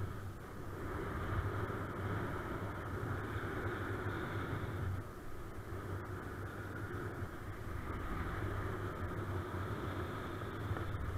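Wind rushing over the microphone of a camera carried by a paraglider pilot in flight, a steady rushing with a low rumble, in strong wind.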